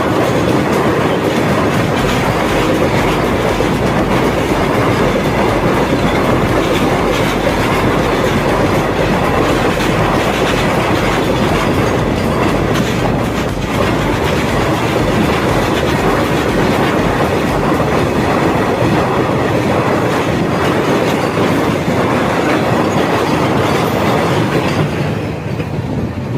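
Train running on the rails, a loud, steady rumble and clatter of wheels that turns duller in the last second or so.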